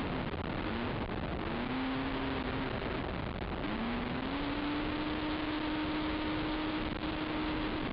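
Race ATV's engine running hard at speed, heard through a heavy rush of wind and track noise on the vehicle-mounted camera. Its pitch climbs twice in the first half as the rider gets on the throttle, then holds steady.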